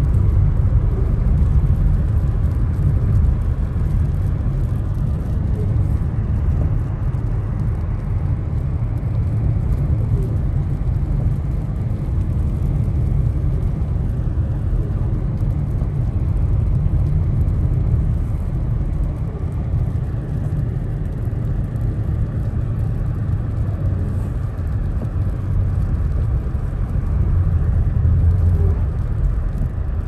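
Steady low rumble of a car's tyres and engine heard from inside the cabin while driving on a snow-covered road.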